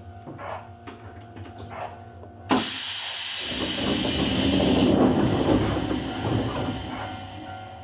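Pneumatic passenger doors of a Sangi Railway 101 series train working: about two and a half seconds in, a sudden loud hiss of compressed air from the door engines, then the rumble of the doors sliding, which fades near the end.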